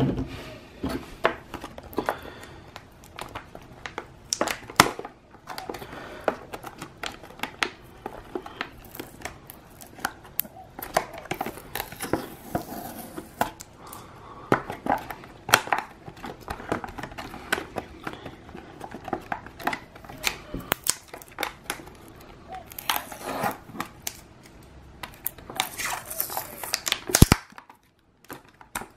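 Clear plastic blister packs with card backs being handled and pried open by hand: irregular rustling of plastic and card with many sharp clicks. One loud click comes near the end, followed by a brief lull.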